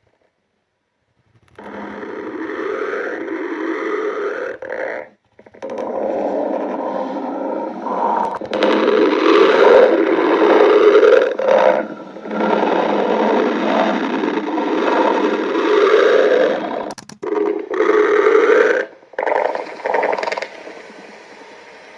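A person's hungry stomach growling, a long, loud run of rumbling gurgles that starts about a second and a half in, with a few short breaks along the way.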